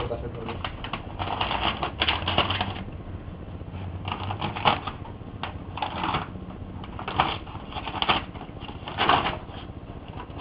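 Printer running, its mechanism clattering in about five short bursts with small clicks in between.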